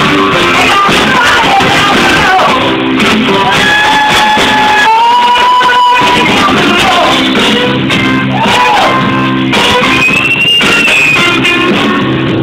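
Live rock band playing: a woman sings long held notes over guitar and a steady rhythm section, loud in a bar-room recording.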